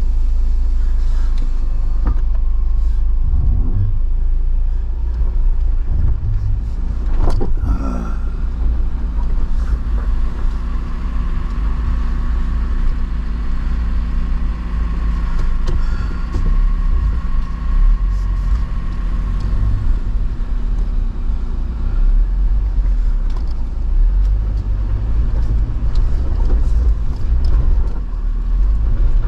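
Jeep Wrangler engine running at low speed while crawling over trail rocks, with a steady low rumble throughout and a brief rise and fall in pitch around seven seconds in.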